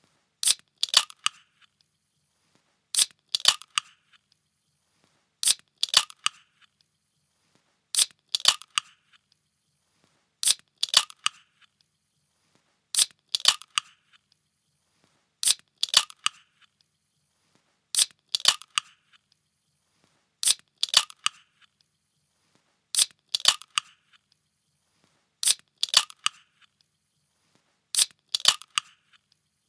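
A pull-tab can snapping open, a sharp crack followed by a short hiss, repeated about every two and a half seconds, twelve times.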